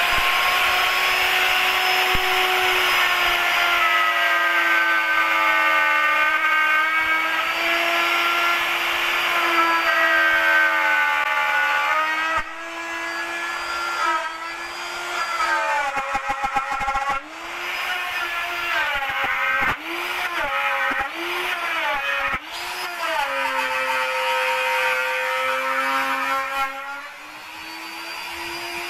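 BMR12 electric plunge router with a straight bit, running with a steady high whine, then routing a slot in a wooden batten. About halfway through, its pitch dips and recovers again and again as the bit bites into the wood. It then sags lower for a few seconds under steady cutting load, and near the end it rises back to free-running speed.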